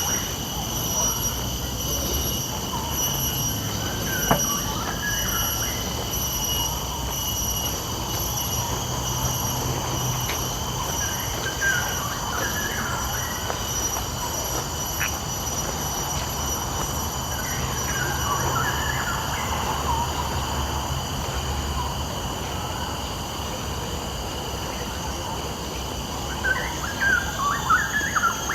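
A steady high-pitched insect drone, with short bursts of bird chirping a few times, busiest near the end, over a low rumble.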